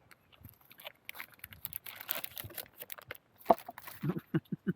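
Rustling and crinkling of plastic packaging as a self-heating meal pouch is handled and opened, with a sharp click about three and a half seconds in.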